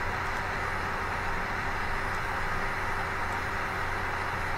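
Steady background hiss with a faint low hum, unchanging throughout.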